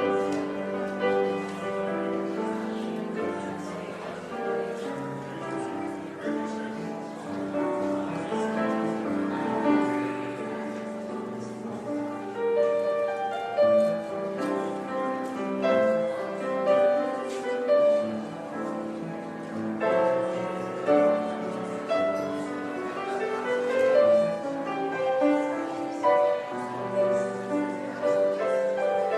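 Solo piano playing a slow, flowing piece, with sustained chords and a melody.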